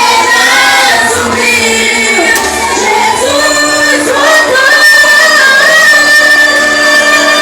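Live gospel singing by a group of worshippers, female voices prominent, in several voice lines over music; about halfway through a high note is held steadily to the end.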